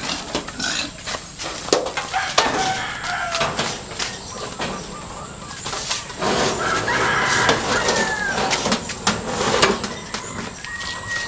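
A rooster crowing once, about six seconds in, over repeated knocks and rattles from a steel-bar animal cage being handled. A short high call comes near the end.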